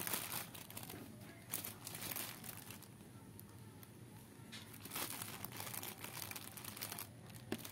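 Clear plastic bag crinkling as it is handled and squeezed in the hands. The crinkling is busiest in the first second or so and again from about five seconds in, with a quieter gap between.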